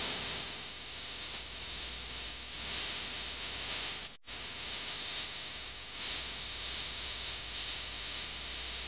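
Steady hiss, brightest in the treble, over a low hum; it cuts out completely for an instant about four seconds in.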